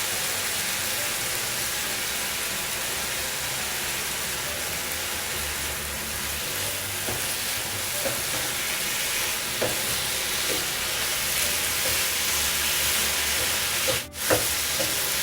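Ripe banana pieces with coconut frying in ghee and nearly cooked-down jaggery syrup, sizzling steadily as they are stirred, with a few light clicks. The sound drops out briefly near the end.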